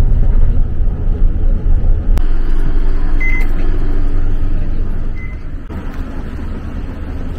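Isuzu city bus running, a steady low rumble heard from inside the cabin, with two short electronic beeps about two seconds apart while it stands at a stop. Near the end the rumble gives way to a quieter street background.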